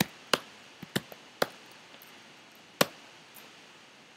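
Computer keyboard keystrokes: a handful of single, sharp key presses at uneven intervals over about three seconds.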